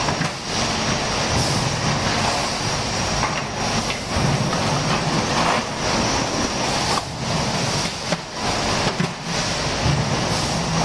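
Automatic steel drum seam welding line running: steady mechanical clatter of its conveyor and rollers with a constant high whine and a low hum.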